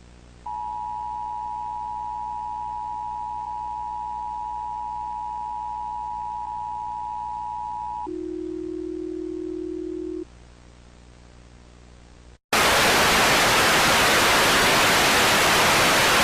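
Emergency Broadcast System attention signal: a steady two-tone beep for about seven and a half seconds, followed by a lower single steady tone for about two seconds. After a short dropout, loud steady static hiss, the loudest sound, fills the rest.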